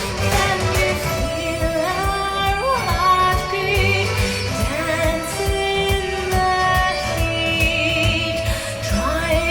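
Recorded music played back through Sony SS-NA2ES pe bookshelf loudspeakers and picked up by room microphones: a song with a woman singing in long notes with vibrato, over a steady beat.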